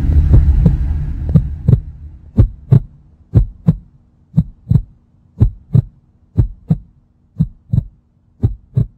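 A loud low rumble fades away over the first two seconds or so. A heartbeat sound effect follows: paired low thumps about once a second, over a faint steady hum.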